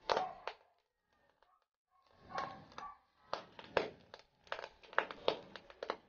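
Metal fork clicking and scraping on a wire grill grate as pieces of meat are shifted over charcoal: a string of sharp clicks and knocks, the loudest one right at the start, then quicker clusters from about two seconds in.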